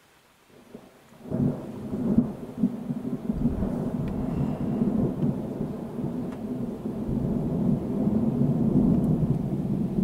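Thunder rolling: after about a second of near silence a long, low, uneven rumble of thunder sets in and keeps rolling.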